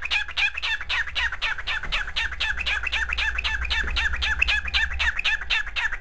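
A cockatiel chirping in a fast, even string of short calls, about five a second.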